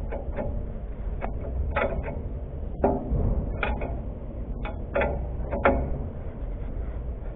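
Metal clicks and clinks of a combination spanner turning a nut on a truck's leaf spring, irregular, about ten in all, over a steady low hum.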